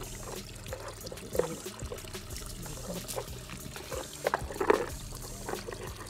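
Shallow water trickling and gurgling over stones, with louder gurgles about a second and a half in and again near the end.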